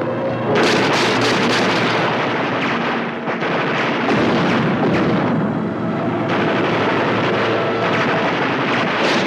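Rapid, sustained gunfire with explosions: a dense clatter of shots starting about half a second in, easing briefly a couple of times.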